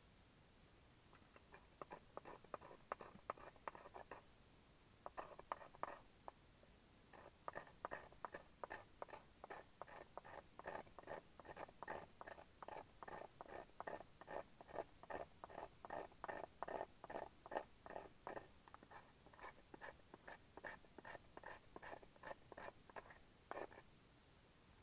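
Knife blade shaving thin curls off a dry stick of kindling, a run of quick scraping strokes at about two or three a second, with a couple of short pauses early on. It is the sound of preparing fine tinder to light a wood stove.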